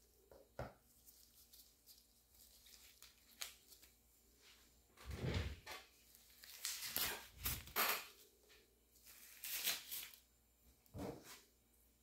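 Handling noises: several short bursts of rustling and knocking, with a small click about half a second in and the loudest bursts in the middle.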